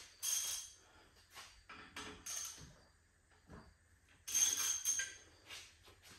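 Metal hand tools clinking and rattling against brake hardware at a car's rear wheel hub: a handful of short metallic jingles and clanks, the loudest and longest about four seconds in, with a brief ring.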